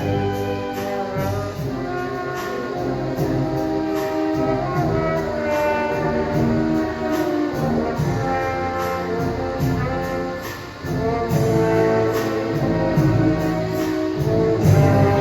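Marching showband brass section and drums playing a Manila Sound medley of 1970s Filipino pop, horns carrying the melody over a steady beat, with a short dip in loudness about ten seconds in.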